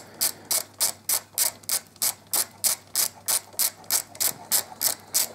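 Hand ratchet driving a 5 mm hex bit, clicking steadily at about three even clicks a second as a small bolt is wound out.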